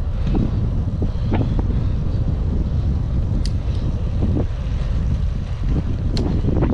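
Wind buffeting the microphone of a helmet-mounted camera while cycling, a loud, steady low rumble, with a few brief ticks.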